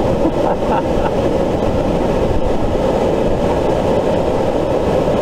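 Waterfall cascade rushing steadily, the whitewater close to the microphone.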